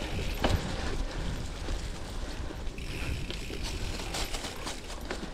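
Drop-bar gravel bike rolling over a leaf-covered dirt trail: tyres on dirt and leaves with the bike rattling over bumps, and the rear freewheel ticking as it coasts.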